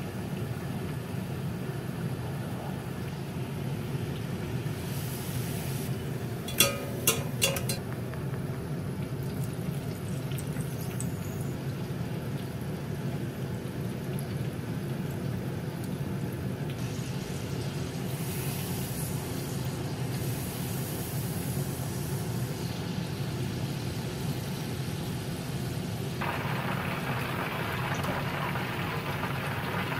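Oil bubbling and sizzling as food deep-fries in a small pot during a low-temperature first fry, over a steady low rumble. A few sharp metal clinks come about seven seconds in, and the sizzle turns brighter and hissier near the end.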